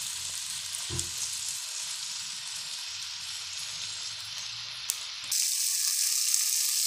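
Sliced onions and tomato pieces sizzling in oil in a pan while being stirred with a wooden spatula, with a single knock about a second in. A little past five seconds the sizzling suddenly becomes louder and brighter.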